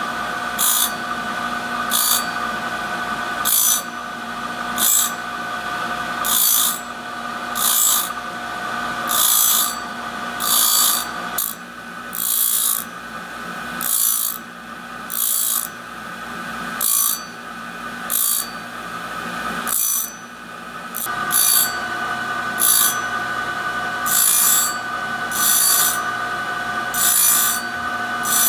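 Abrasive wheel on a Rockwell grinder sharpening the teeth of a hole saw one at a time: a short rasp of the wheel on a tooth about every second and a half as the automatic indexing head steps the saw round, over the steady hum of the running machine. A mid-pitched whine in the hum drops out for a while about halfway through.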